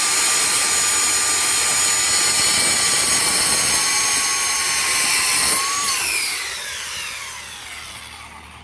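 Circular saw running at full speed with a steady whine, then switched off about six seconds in and spinning down, its pitch falling away over about three seconds.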